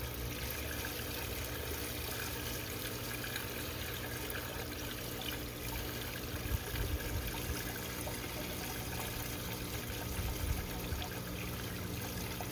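Nutrient solution pouring steadily from a plastic gallon jug into the inlet pipe of a hydroponic tower, trickling down into the reservoir. Two brief low bumps come about halfway through and near the end.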